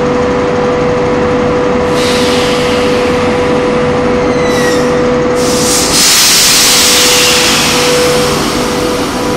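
SS8 electric locomotive standing with its equipment running, a steady hum with a strong whining tone. A hiss of compressed air comes in about two seconds in and swells to a loud rush of air from about halfway through.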